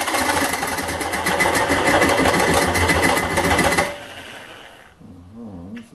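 Ozito reciprocating saw with a bimetal demolition blade cutting dry into a cast aluminium alloy wheel rim at slow speed, a loud, fast-stroking rattle of blade against metal. It stops abruptly about four seconds in as the saw is lifted out, judged to need a few more revs than the slow setting.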